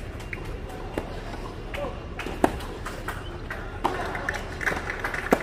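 Tennis ball struck by rackets: single sharp knocks about a second and a half apart, the strongest about two and a half seconds in and near the end, with fainter taps between.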